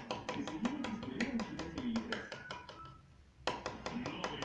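Cockatiel rapidly tapping with its beak on a hard surface like a woodpecker, about six or seven sharp taps a second. The tapping stops for a moment about three seconds in, then starts again.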